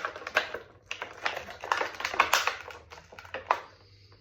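Irregular clicks and crackles of stiff plastic packaging being handled as an action figure is worked loose from its tray, thinning out near the end.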